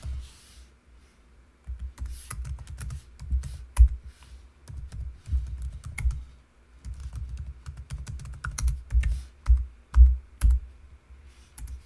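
Computer keyboard typing in quick runs of key clicks with dull thuds beneath, broken by short pauses about a second in and past the middle.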